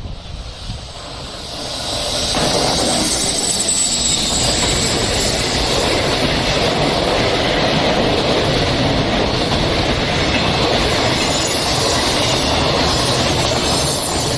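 A train passing close by on the line: the rail and wheel noise builds over the first two seconds, then holds as a loud, steady rush with clickety-clack and a high wheel squeal at times.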